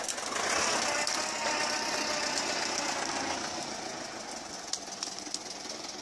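Tractor engine running as it hauls a loaded log trailer over rough forest ground, with a faint whine about a second in and a few sharp knocks or rattles past the middle.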